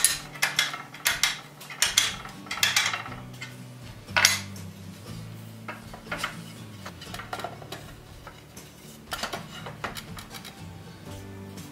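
Iron wagon brake irons clanking and clinking in irregular knocks as they are handled and fitted against new wooden brake parts, with a loud clank about four seconds in, over soft background music.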